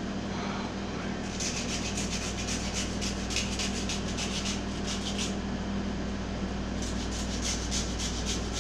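Rapid rasping strokes, about five a second, of a spicy ingredient being shaved into a bowl of ramen, in two runs: from about one second in to about five seconds, then again from about seven seconds on.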